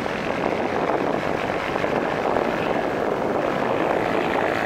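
Steady drone of motorboat and jet-ski engines on the water, blended with the general noise of a crowded beach.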